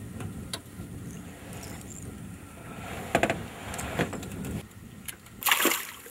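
A hooked small snook splashing at the surface beside an aluminium boat as it is drawn in. There is low rumbling and a few knocks from the boat and tackle, then one loud splash about five and a half seconds in.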